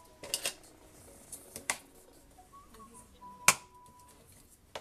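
Sharp clicks and taps of stiff cardstock being handled and pressed down on a table while it is folded, a few scattered snaps with the loudest about three and a half seconds in.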